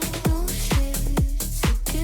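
Tech house dance music: a steady four-on-the-floor kick drum, about two beats a second, under electronic synth notes.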